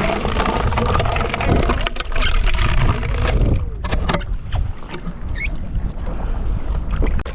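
Wind buffeting the microphone and water sloshing against a kayak, with a steady low rumble and a few scattered clicks and splashes.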